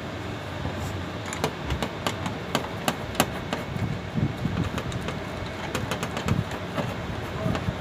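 Irregular metal clicks and taps from a hand wrench working a fastener on a galvanized steel air duct, over a steady background hum.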